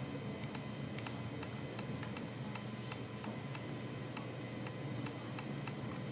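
Light regular ticking, a few ticks a second, over a low steady hum.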